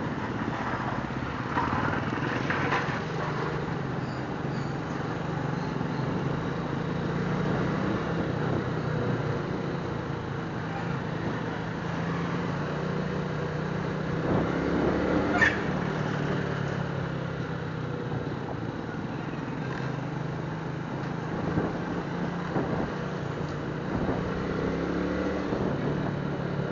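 Suzuki Smash 115 motorcycle's single-cylinder four-stroke engine running under way, its pitch stepping up and down with throttle and gear changes, over wind and road noise. One short sharp knock a little past halfway.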